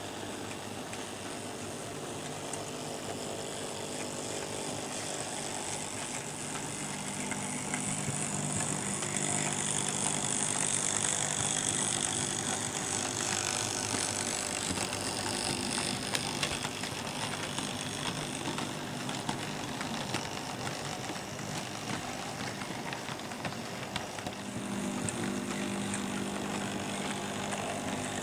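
Märklin model trains running on the layout: a steady electric motor whir and the rumble of wheels on the track. It grows louder from about 8 seconds in as a railcar passes close by, and swells again near the end as a locomotive approaches round a curve.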